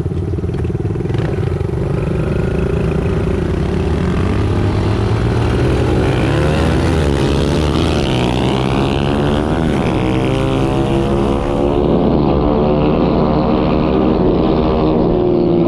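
Several small pit bike engines accelerating hard together from a rolling start. Their pitches climb and fall back as the riders shift, overlapping and crossing one another, heard close up from one bike's handlebars.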